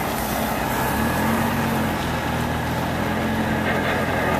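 Jeep Wrangler TJ engine running steadily as it drives slowly along a dirt track, heard from inside the cab.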